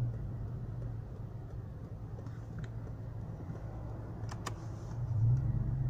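Car engine running at low revs, heard from inside the cabin as a steady low hum that grows louder about five seconds in. A few light clicks come around the middle.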